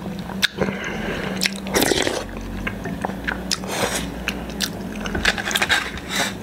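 Close-miked chewing of food, with wet mouth sounds and repeated short sharp clicks.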